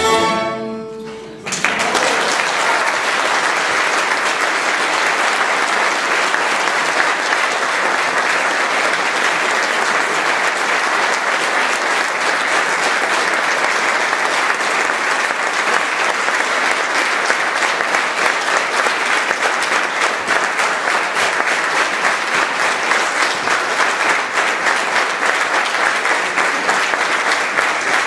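Solo violin and string orchestra cut off on a final chord; about a second and a half later an audience breaks into steady applause.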